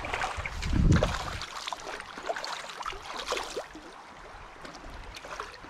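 Hooked smallmouth bass splashing and thrashing at the water's surface as it is steered into a landing net. There is a loud splash about a second in, then smaller splashes and drips that die down after about three and a half seconds.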